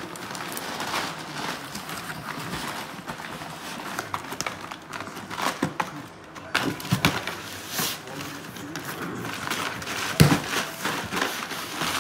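Beagle rummaging inside a cardboard shipping box: cardboard rustling and scraping, with irregular knocks and rustles, the loudest a thump about ten seconds in.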